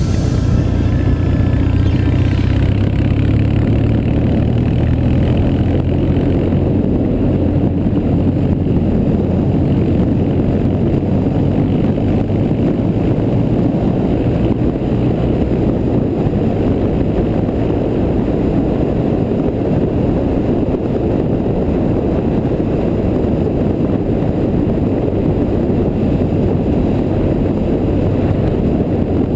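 BMW R1100GS boxer-twin engine running steadily at road speed, under a heavy rush of wind on the microphone. The engine note is clearest in the first few seconds, after which the wind noise covers more of it.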